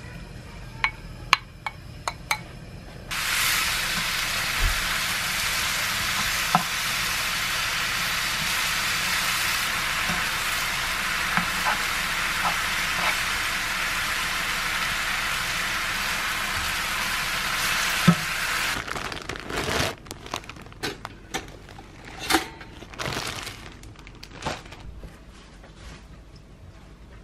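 Marinated thin-sliced pork bulgogi frying in a pan: a loud, steady sizzle that begins about three seconds in, after a few clicks, with small clicks and scrapes of a spatula stirring the meat. The sizzle cuts off abruptly about two-thirds of the way through, and scattered light taps and knocks follow.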